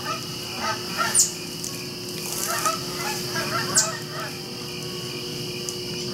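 Geese honking: a series of short calls in scattered groups. Two short, sharp high-pitched sounds stand out, about a second in and again near four seconds in.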